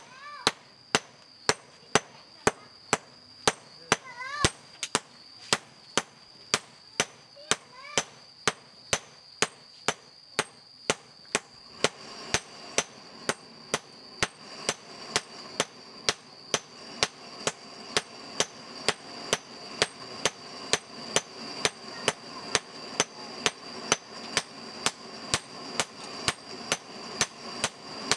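Blacksmith's hand hammer striking a hot steel blade held in tongs on a small anvil, in a steady rhythm of about two blows a second, each blow with a high ring. The blade is being forged by hand, from red heat down to a dull grey as it cools under the hammer.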